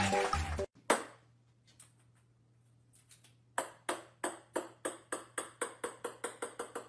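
Music cuts off abruptly near the start. Then a small ball bounces on a hard wooden floor, one click about a second in and, from halfway through, a run of bounces coming ever quicker and fainter as the ball settles, over a low steady hum.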